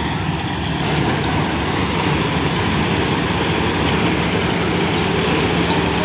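Kuldeep combine harvester's diesel engine and threshing machinery running steadily, getting slightly louder about a second in.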